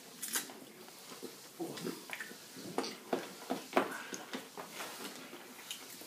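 Eating noises: irregular clicks, smacks and short breathy sounds as an ice-cream bar is bitten and sucked, after a mouthful of ghost-chilli chicken.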